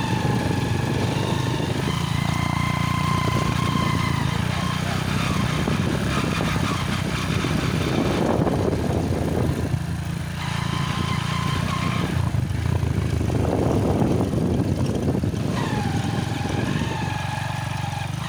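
Small motorcycle engine running steadily while riding, its pitch dipping near the end. A rushing noise swells twice around the middle.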